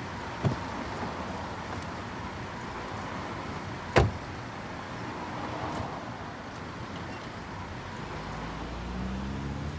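A car door handle clicks open, and about four seconds in a car door shuts with a loud thud, over steady street ambience. Near the end a low car engine hum comes up and rises.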